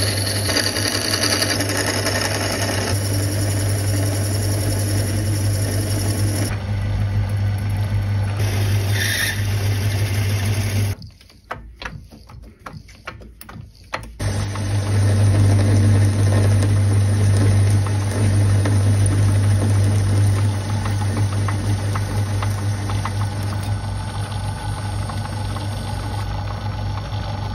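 Small metal lathe running steadily, turning brass stock, with a steady low motor hum and a high whine. It cuts out about eleven seconds in and is quiet for about three seconds, then runs again.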